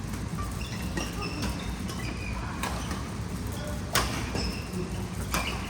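Badminton rackets striking a shuttlecock in a rally: three sharp hits about 1.3 seconds apart, with a fainter one near the start. Short high squeaks, typical of court shoes on the floor, come between the hits.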